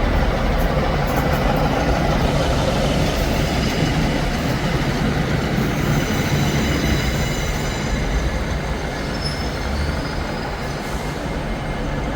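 Train moving through the station: a steady low rumble with faint high-pitched wheel squeal, easing off slightly near the end.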